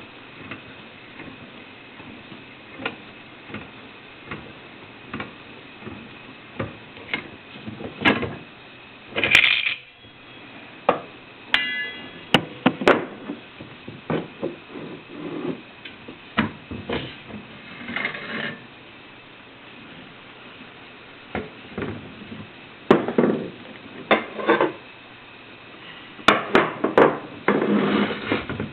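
Irregular metal clanks, knocks and taps as parts of a coffee sample roaster are handled and loosened with hand tools during disassembly, with a short ringing metal ping about twelve seconds in and denser clattering near the end.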